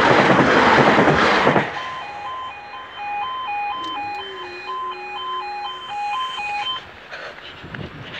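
A Class 395 high-speed electric train rushing past at close range for about the first second and a half, then the level crossing's two-tone warning alarm alternating about twice a second until it cuts off suddenly near the end.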